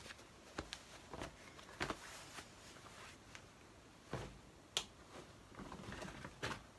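Faint rustling with scattered soft knocks and clicks from denim jeans being handled: one pair set down and another picked up from a pile.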